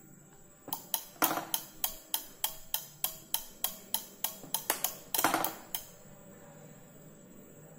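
Relays on a PLC trainer board clicking rapidly, about three to four clicks a second for some five seconds, as they switch the board's lamps on and off, with a louder, longer burst near the end.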